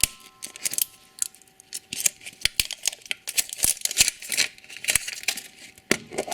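Foil wrapper of a chocolate surprise egg being torn open and crinkled, with many irregular sharp clicks and crackles.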